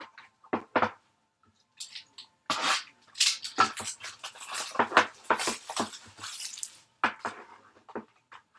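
Two light knocks as a small box of trading cards is handled, then several seconds of crinkling and tearing of its plastic wrap as it is unwrapped, with a few more light knocks and rustles near the end.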